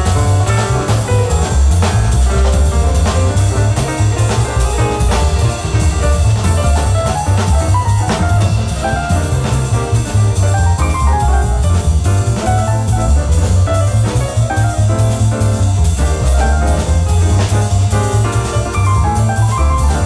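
Live jazz quartet of tenor saxophone, piano, double bass and drums playing at a steady tempo: the bass is strong and busy underneath, the drums keep a constant cymbal pulse, and a running melodic line moves on top.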